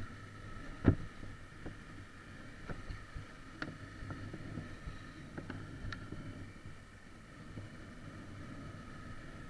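Dirt bike riding a rocky gravel track, its engine running steadily. There is a sharp knock about a second in, then lighter clicks and knocks as the bike jolts over stones.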